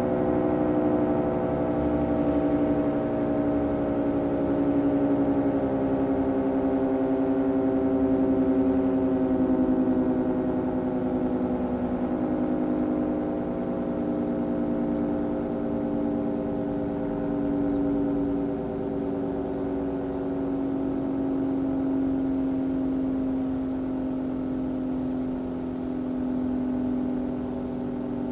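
Federal Signal 3T22A three-tone electromechanical warning siren coasting down after its alert blast: a chord of several tones slowly falling in pitch and gradually fading.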